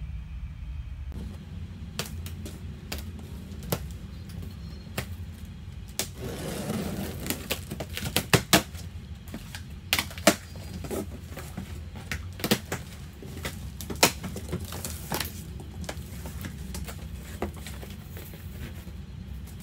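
Large cardboard box being unpacked: scissors and plastic packing straps clicking and snapping, cardboard flaps and panels tapped, knocked and rustled in an irregular run of sharp clicks, with a brief scraping rustle about six seconds in. A steady low hum runs underneath.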